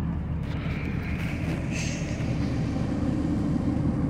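Steady low engine and road rumble heard from inside the cab of a moving tow truck.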